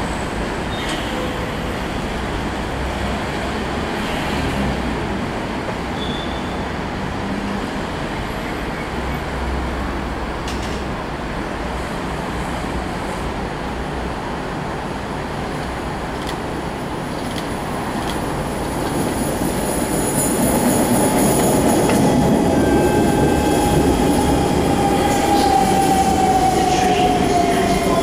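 Singapore MRT C651 electric train approaching on elevated track and pulling into the station. Steady wheel and rail rumble grows louder about two-thirds of the way in as the train comes alongside, with a whine from its electric drive falling in pitch near the end as it slows.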